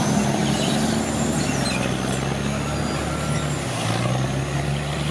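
A heavy engine running steadily with a low hum over a noisy wash, its pitch shifting about three-quarters of the way through.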